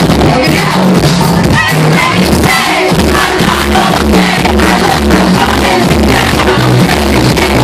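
Live electronic rock band playing loud through a club PA: a steady, heavy bass beat under a singer's amplified vocal.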